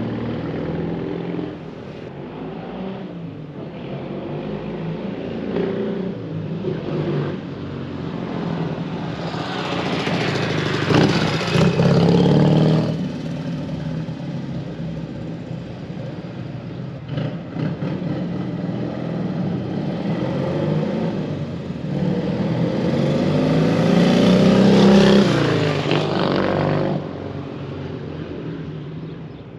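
Dněpr K-650's flat-twin engine running as the motorcycle is ridden around out of sight. It grows loud twice, about eleven seconds in and again about twenty-four seconds in, with the engine pitch rising and falling, and it fades away near the end.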